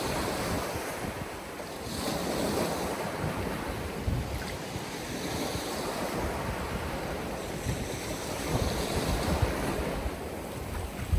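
Strong wind buffeting the microphone in an uneven low rumble, over the steady wash of surf breaking on the beach.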